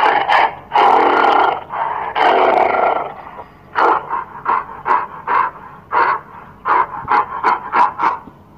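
Gorilla calling: several long, loud calls in the first three seconds, then a quick run of short calls, about two a second.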